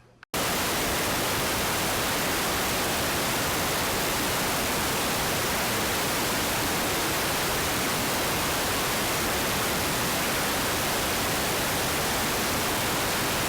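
Steady, loud hiss of static-like noise, even across all pitches and at a dead-constant level, cutting in abruptly just after the start.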